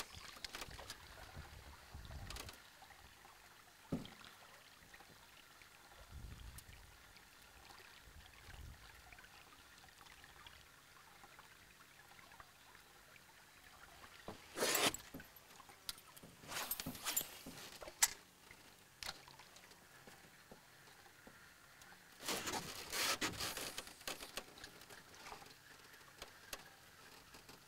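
Quiet river ambience around a boat: faint trickling water with a few light knocks and short rushes of noise, the loudest about halfway through and again later on.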